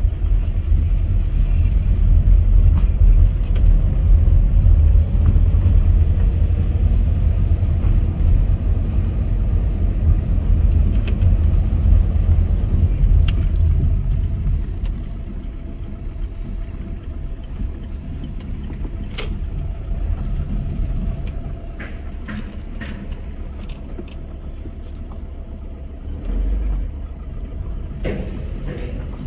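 Low rumble inside a Volkswagen Vento's cabin as it drives over a rough, patchy road. The rumble is loudest in the first half and eases about halfway through as the car slows. A few light clicks come in the middle and a small thump comes near the end.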